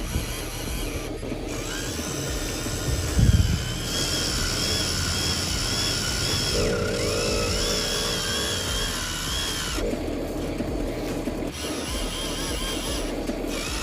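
Small electric motors and gearboxes of radio-controlled construction models whining, the pitch rising and falling as they speed up and slow down. There is a low thud about three seconds in.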